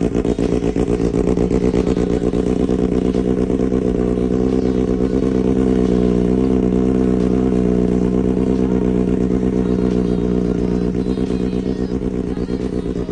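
Kawasaki ZX-6R 636 inline-four engine running through an SC-Project aftermarket exhaust, held at steady revs with a slight rise in pitch about halfway that settles back.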